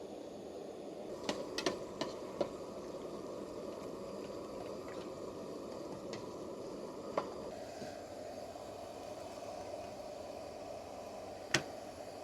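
Steady rush of flowing water, with a few sharp clicks: a small cluster about a second in, one in the middle, and a louder one near the end.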